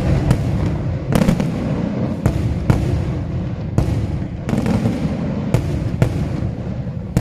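Daytime aerial fireworks: shells bursting in a run of about nine sharp bangs at irregular intervals, over a continuous low rumble of further reports and echoes.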